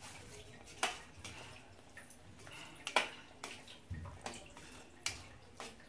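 Mutton curry simmering in a stainless-steel kadai, with a low bubbling haze and several sharp clinks of a ladle against the pan as the gravy is stirred, the loudest about three seconds in.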